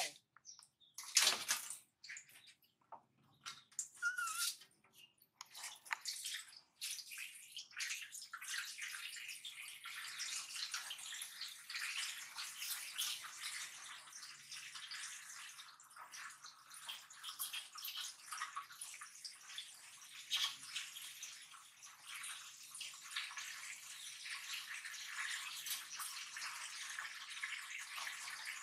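Water running from a pipe into a large metal basin, a steady hiss that sets in a few seconds in and carries on. Before it, a few short knocks and one brief high squeak.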